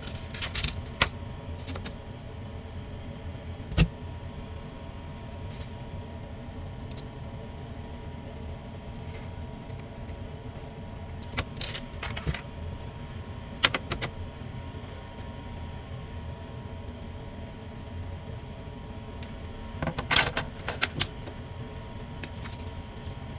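Hand tools being handled on a metal plate and bench: a tape measure and a plastic speed square are picked up, slid and set down, giving scattered clicks, taps and short metallic rattles in a few brief clusters. Under them runs a steady low hum of room noise.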